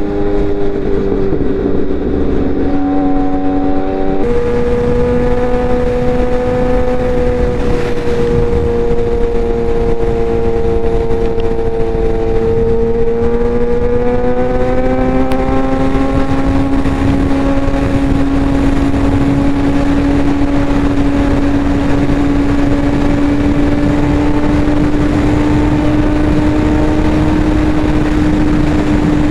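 Suzuki GSX-R 750's inline-four engine pulling at highway speed, heard from the rider's seat over steady wind and road noise. The engine note changes abruptly about four seconds in, then climbs gently about halfway through and holds steady.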